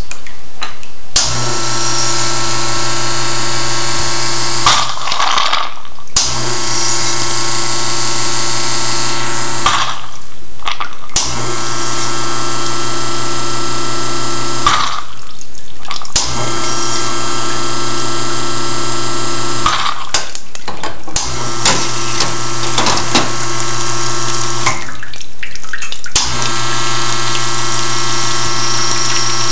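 Elektra espresso machine's pump and group solenoid cycling through an automatic backflush: the pump hums with rushing water for about three and a half seconds, stops for about a second and a half, then starts again, six times over.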